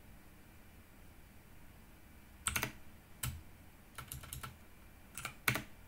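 Computer keyboard being typed on: quiet at first, then a few scattered, separate keystrokes starting about two and a half seconds in, some in quick pairs.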